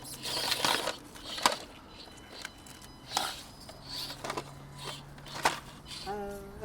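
Small electric drive motor of an Axial SCX24 1/24-scale crawler whirring in spells as it climbs, with scattered clicks and scrapes of the truck on the obstacle.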